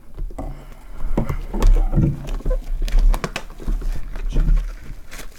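Cardboard box of trading-card packs being handled close to the microphone: a quick irregular run of knocks, taps and rustling with dull thumps.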